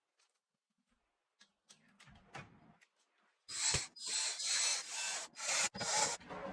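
Rubbing and scraping of parts being handled during a PC build: a few faint clicks, then from about three and a half seconds in a run of five loud rasping strokes.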